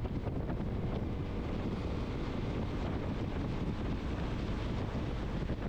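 Wind buffeting the microphone of a Yamaha XMAX scooter riding at steady road speed, with the scooter's running noise underneath. The rush stays even and low, with no changes.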